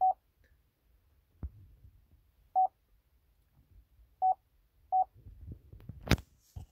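Opel Adam's dashboard infotainment touchscreen giving four short single-pitch beeps as its on-screen buttons are tapped, with a sharp click near the end.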